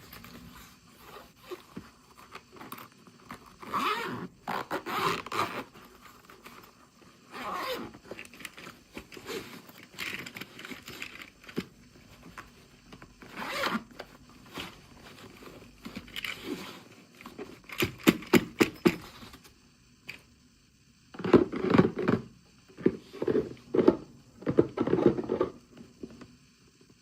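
Packaging being torn open and handled: plastic and paper crinkling, scraping and tearing in short irregular bursts, with a quick run of clicks partway through and heavier rustling near the end.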